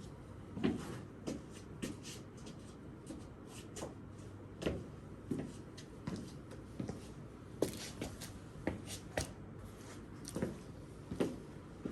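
Irregular soft knocks and scuffs from a person moving about, about one a second, some with a dull thud, in a small room.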